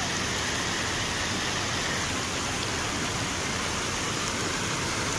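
Water rushing over a low weir into a rocky, shallow river: a steady, even hiss that does not change.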